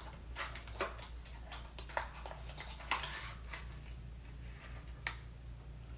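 Cardboard box and plastic wrapping of an Impress press-on nail kit being handled and opened: irregular crinkles and small clicks, the clearest about half a second, one, two, three and five seconds in.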